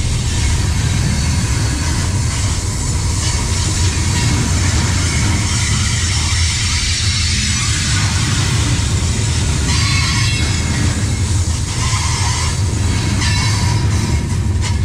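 Freight train of tank cars rolling past at close range: a continuous loud rumble and rattle of steel wheels on the rails. A few brief high wheel squeals come through in the last few seconds.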